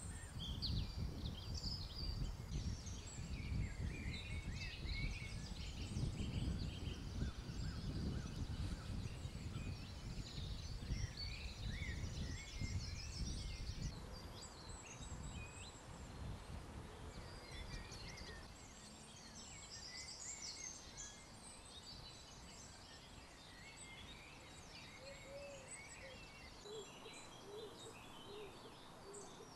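Small birds chirping and singing in many short, overlapping calls. Wind rumbles on the microphone for about the first half, then stops at a sudden change, leaving fainter birdsong.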